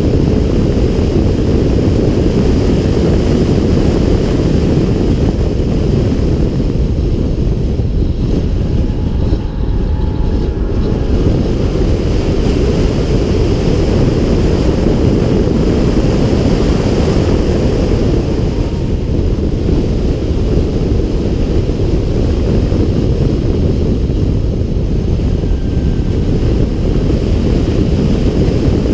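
Wind buffeting the microphone of a camera mounted on the hood of a BMW X6 M at track speed: a loud, steady rumble that masks most of the engine and tyre sound. It thins briefly twice, about a third of the way in and again about two thirds through.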